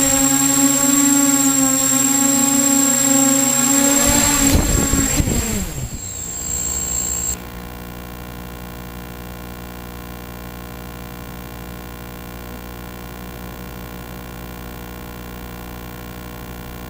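Y6 multirotor's six electric motors and propellers running steadily, then spinning down together to a stop about five seconds in. Afterwards only a steady electrical hum remains.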